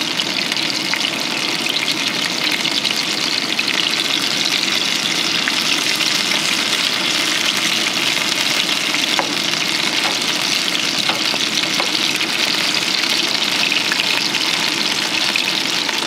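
Chicken pieces frying in oil in a non-stick pan on a portable gas stove: a steady sizzle with fine crackles.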